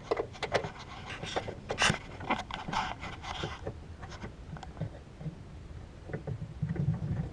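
Plastic clicks and scraping rubs as the taillight's plastic retaining block is screwed back into place, busiest in the first few seconds and then quieter scattered handling.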